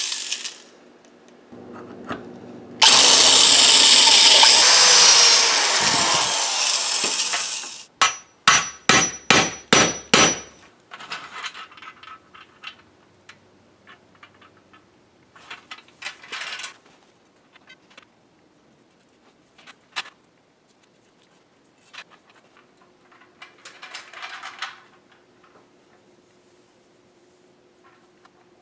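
A handheld electric rotary tool runs for about five seconds and spins down. A quick run of about seven hammer strikes on metal follows, each with a ringing note. After that come faint scattered clicks and rubbing as the straps and plate are handled.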